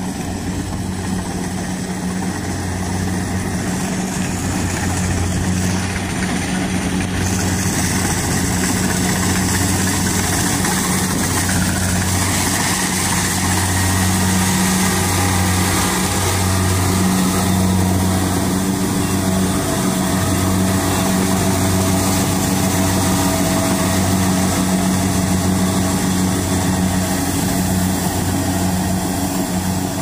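Kubota DC-70 Plus rice combine harvester running steadily as it harvests, a loud, continuous engine and machinery drone with a low hum that pulses slightly.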